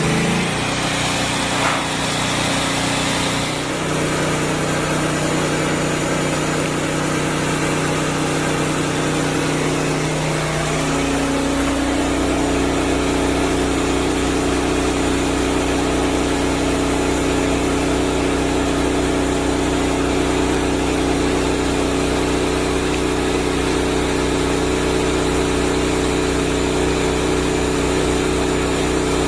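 Shop vac converted into a bee vacuum running steadily, drawing bees into a hive box; its motor note steps up in pitch about ten seconds in.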